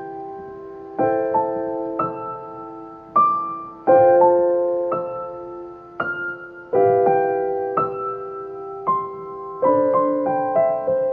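Piano played slowly, chords struck about once a second and left to ring and fade, the notes coming quicker near the end.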